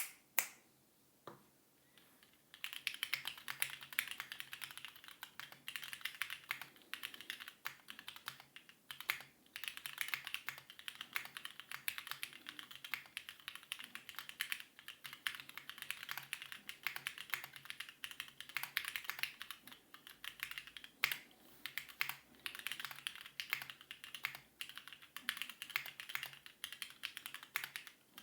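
Typing on a plateless Etcetera65 prototype mechanical keyboard with stock Gateron Yellow linear switches and GMK Modern Dolch 2 keycaps. A few single key clicks come first, then fast, continuous typing from about two and a half seconds in.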